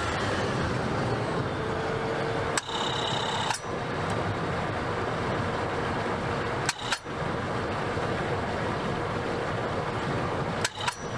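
Truck engine idling with a belt-driven York air compressor (a converted old-style AC compressor) engaged and running, giving a steady faint whine over the engine noise. A few sharp clicks break in along the way.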